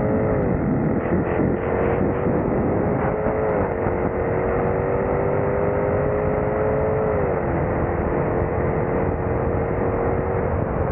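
Supercharged Jaguar F-Type engine under hard acceleration, its pitch climbing slowly through each gear and dropping sharply at three upshifts of the eight-speed automatic, over steady wind and road noise.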